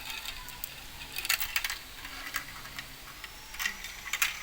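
Marbles rolling down a marble run, clicking and clattering against the track and each other, with quick runs of clicks about a second in and again near the end.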